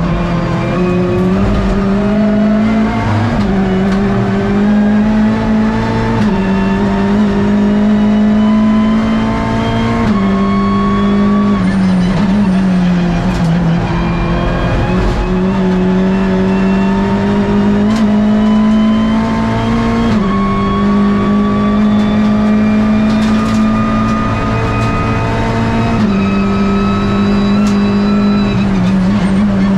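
Hyundai i30 N TCR race car's turbocharged four-cylinder engine heard from inside the cockpit at racing speed. The revs climb and drop back several times as the car shifts gears and brakes for corners.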